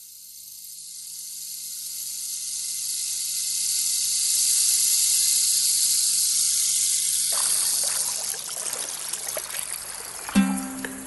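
Steady rushing, hissing noise like surf or running water, swelling up from quiet over the first few seconds and growing fuller about seven seconds in. Acoustic guitar music comes in near the end.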